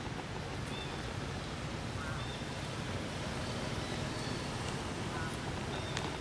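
Steady outdoor background noise with a low rumble, with a few faint, short, high chirps scattered through it.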